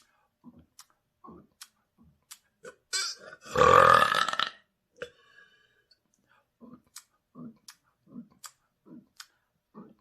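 A person's loud, long burp, lasting about a second, a few seconds in. Faint clicks and small throat sounds come before and after it.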